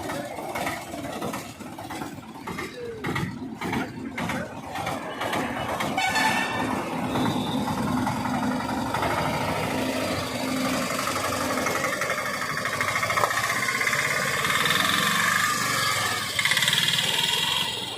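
Piaggio Ape auto-rickshaw's engine running. The first six seconds are broken by a quick series of knocks, and after that the engine runs on steadily.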